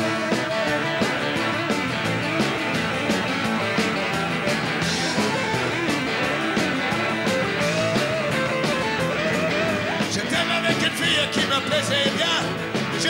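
Live rock-and-roll band playing an instrumental passage: electric guitars, bass guitar and drum kit over a steady beat. About ten seconds in, a higher, wavering lead line comes in on top.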